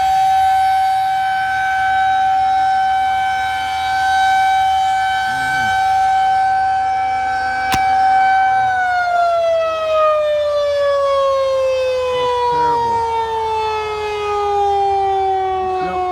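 Outdoor tornado warning siren sounding one steady tone, then winding down a little past halfway, its pitch sliding slowly lower to the end. A single sharp click just before the wind-down.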